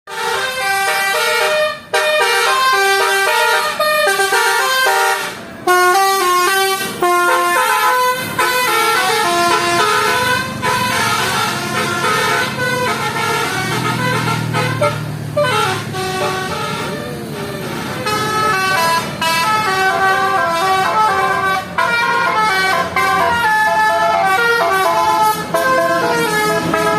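Basuri telolet bus horn, a set of electric air horns playing quick melodic tunes in rapid stepped notes. About halfway through a low engine rumble comes in underneath, along with a long falling glide in pitch.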